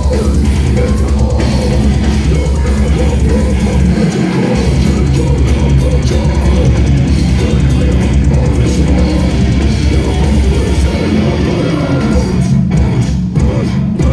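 Death metal band playing live at full volume, heard from the crowd: fast, dense drumming with heavily distorted electric guitars and bass. The low end drops out briefly about four seconds in and again near eleven seconds.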